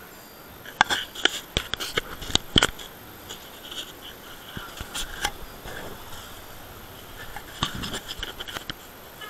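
Handling noise from a hand-held camera: sharp clicks, knocks and rubbing in two clusters, one about a second in and another near the end.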